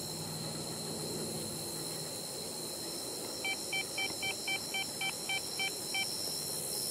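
A handheld ghost-hunting detector beeping about ten times in quick succession, roughly four beeps a second, starting about halfway through; the ghost hunters take it going off as a spirit responding. Under it, a steady high drone of night insects.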